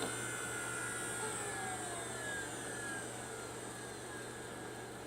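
A computer winding down, likely the iMac G3 being switched off: several whines fall slowly in pitch over the first few seconds, like drives or a fan spinning down, over a steady low hum, and the sound eases off gradually.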